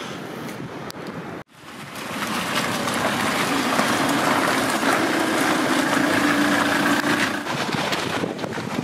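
Gusty wind blowing on the microphone. It cuts out suddenly about a second and a half in, then swells back and stays loud, with a faint low hum underneath through the middle stretch.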